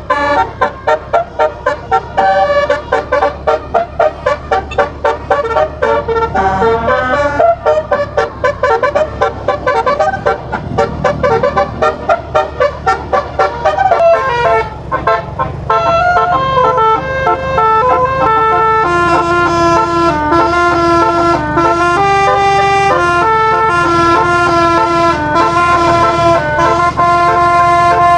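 Basuri telolet set of twelve tuned air-horn trumpets driven by a MIDI module, playing a melody. Quick short notes come first, then longer held notes over the last third.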